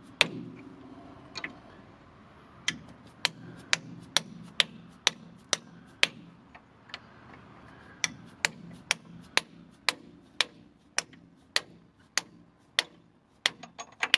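Steady hammer blows, about two a second, on a 3/8 extension used as a drift to drive out a 1990 Ford Ranger's front brake caliper pin: sharp metal-on-metal taps.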